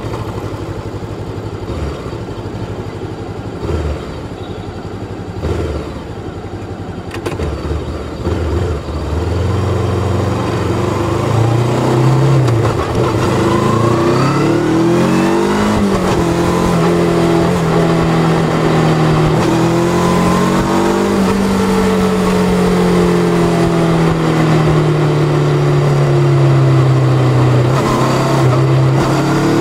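Bristol Venturi 500 motorcycle engine, low and uneven at first, then accelerating with a rising note. About halfway through the pitch drops back as it shifts up a gear, and it then holds a steady cruising note that rises and falls gently.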